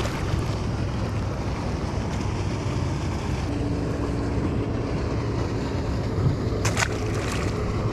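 Steady low rumble of wind buffeting the microphone outdoors on the water, with a short sharp hiss near the end.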